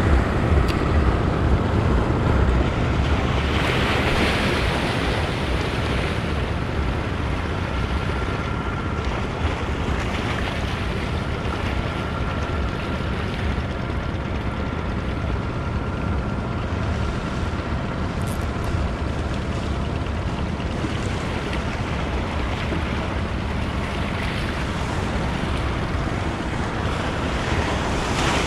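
Sea waves washing against a rock jetty, with wind buffeting the microphone, the wind stronger in the first few seconds.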